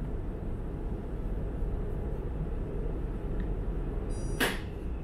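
Steady low hum of a Cobra tram at a standstill, heard from inside the passenger cabin, with a brief hiss about four seconds in.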